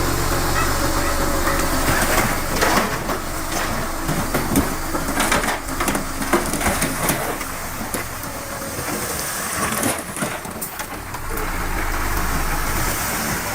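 Heavy earthmoving machine's engine running with a steady low rumble, broken through the middle by a run of irregular metallic clanks and knocks.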